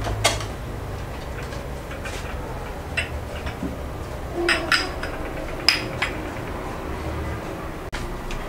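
Pear-shaped glass tea glasses and saucers clinking as they are set down on a table: a handful of sharp clinks spread over several seconds, two of them close together, over a low steady hum.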